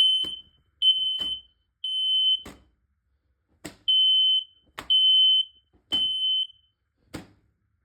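Smoke alarm sounding its high-pitched three-beep alarm pattern: three half-second beeps, a short pause, then three more, with a new group starting near the end.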